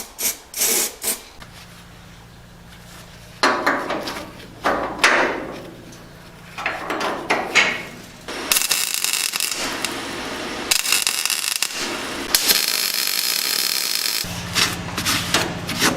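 Hand-tool scraping and rubbing strokes on steel, then three long bursts of steady hiss, during rust work on a car's chassis leg.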